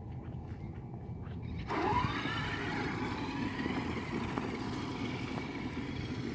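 Traxxas X-Maxx electric RC monster truck setting off about a second and a half in: its brushless motor whines and its tyres run over dirt. Before that, light regular ticks of footsteps.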